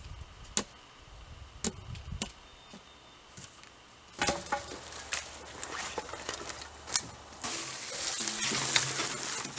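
A few sharp knocks of a tool striking a wooden pole. Then, from about four seconds in, dry brush and branches rustle and crackle as they are dragged along the ground, loudest near the end.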